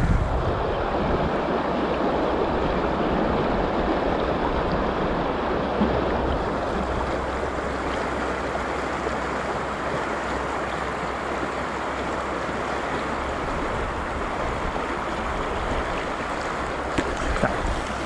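Mountain stream flowing, a steady rushing noise.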